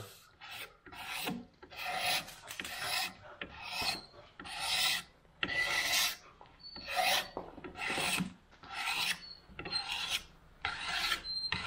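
Leatherman knife blade held square to a wooden axe handle and raked along it in repeated scraping strokes, about one a second, stripping off the factory lacquer.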